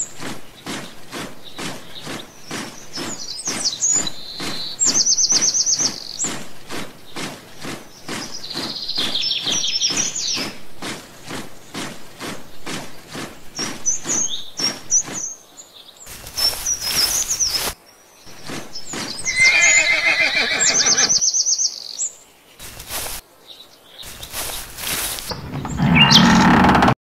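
Sound-effect track of a column on the march: a steady tramp of footsteps, about two or three a second, that stops about fifteen seconds in. Over it horses whinny several times and birds chirp. Several loud bursts of noise follow in the second half.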